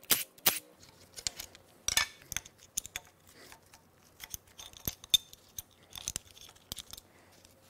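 Scattered metallic clinks and rattles of a steel timing chain and sprockets being worked loose and lifted off the front of a Chevrolet 454 big-block, with louder knocks near the start and about two seconds in.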